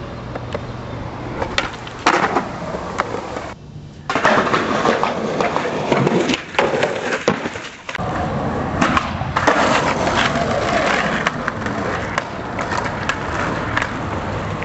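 Skateboard wheels rolling over rough concrete, with sharp clacks from the board popping and landing. The sound cuts off and starts again a few times between separate runs.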